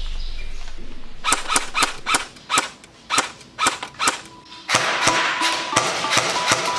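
Airsoft guns firing: a string of sharp snapping shots, irregular and a few a second, coming thicker and more continuous in the last couple of seconds.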